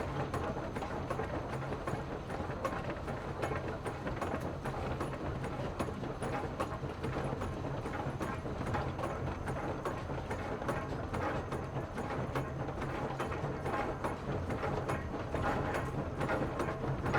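Train running steadily: a constant low rumble with dense, irregular clattering and rattling over it.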